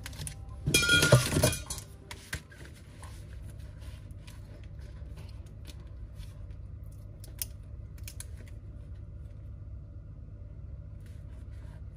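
Handling noise from repair work on an iPad Air 2: a loud clattering rustle of parts being moved about a second in, then scattered small clicks and taps of fingers working the screen's flex cable, over a steady low hum.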